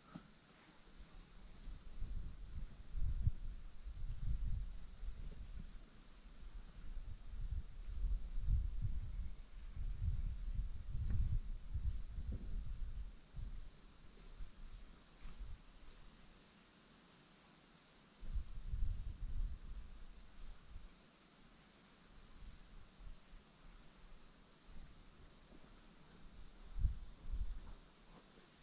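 A steady chorus of insects, a high rapid pulsing trill that never lets up. Irregular low rumbling noises rise and fall beneath it, heaviest in the first half and again briefly near the end.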